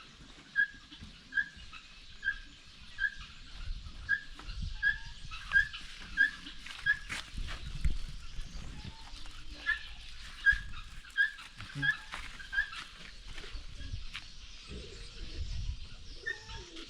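A short, high animal call repeated evenly about every three-quarters of a second, over low rustling and handling knocks.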